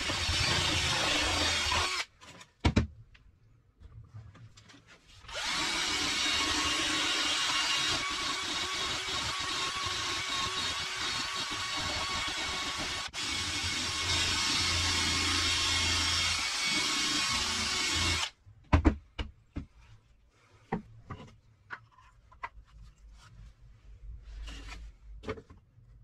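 12 V cordless drill running under load in two stretches, a short one at the start and a long steady run of about thirteen seconds, with a brief break partway through. Short knocks and clicks of parts being handled on the wooden bench come between the runs and after the drill stops.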